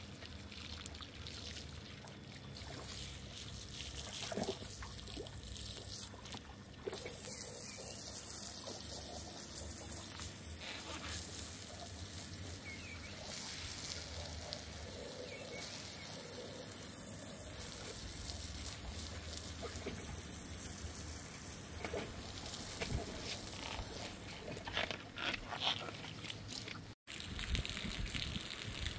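Water running from a garden hose, spraying and splashing onto a soapy rug as it is rinsed. The spray gets louder about a quarter of the way in.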